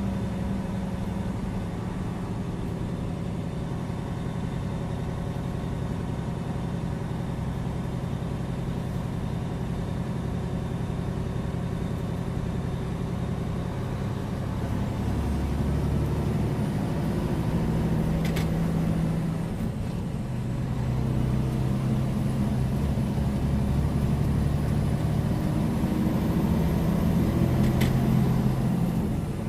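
Semi truck's diesel engine and tyre noise heard inside the cab at highway speed: a steady low drone whose pitch shifts about halfway through and then grows a little louder.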